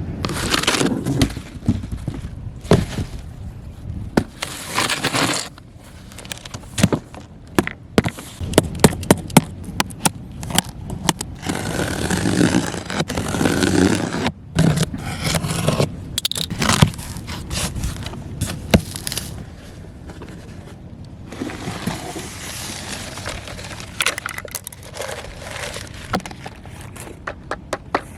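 Die-cast toy dump truck being handled: repeated scraping with many sharp clicks and some rustling.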